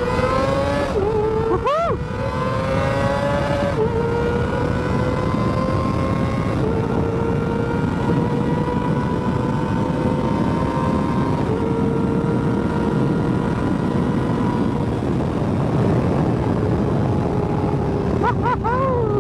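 Kawasaki ZX-25R's 249 cc inline-four, fitted with a Villain aftermarket muffler, running at high revs under way. Its pitch climbs over the first few seconds and then holds roughly steady, with short breaks about two seconds in and near the end. Heavy wind rush on the helmet-camera microphone runs underneath it.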